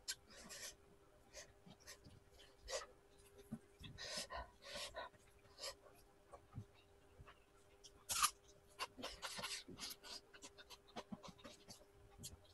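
Close-up eating sounds: chewing and lip-smacking on mouthfuls of chicken curry and rice eaten by hand, with short wet clicks and breaths and one louder burst about eight seconds in. A faint steady hum runs underneath.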